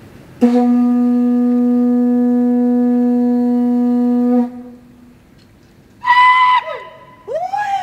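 Conch shell trumpet (Hawaiian pū) blown in one long, steady, loud blast of about four seconds on a single low note. Near the end come shorter, higher sounds that swoop up and down in pitch.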